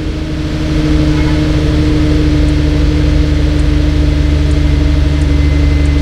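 2006 Infiniti FX35's 3.5-litre V6 idling steadily.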